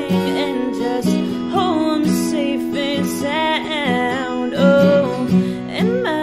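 Music: a woman singing a melody with bending notes over a Taylor acoustic guitar played steadily underneath.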